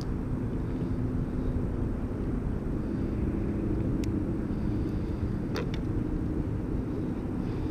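Steady low outdoor rumble with a faint droning hum through it, and two small clicks, about four and about five and a half seconds in.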